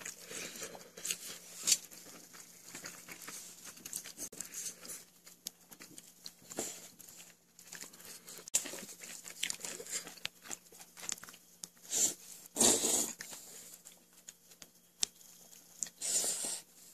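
Close-up eating sounds from a bowl of jjampong: irregular wet slurps, chewing and chopsticks working through the noodles and broth, with two louder, longer slurping bursts about two-thirds of the way through and near the end.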